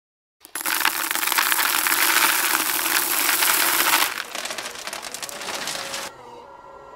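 Loud, dense crackling and crushing sound effect accompanying an animated logo intro, starting about half a second in, thinning out after about four seconds and dropping away near six seconds, leaving faint steady tones.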